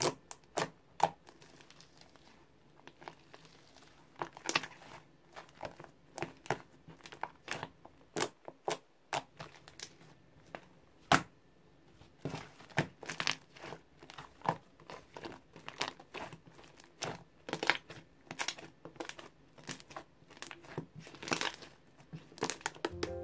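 Hands squeezing, stretching and poking a large soft, thick slime: irregular sticky clicks and pops as it is pressed and pulled apart.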